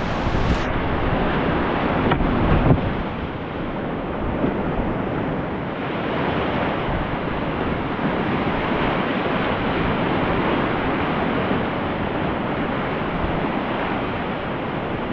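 Whitewater river rapids rushing steadily, with wind buffeting the microphone; a brief louder surge of water about two and a half seconds in.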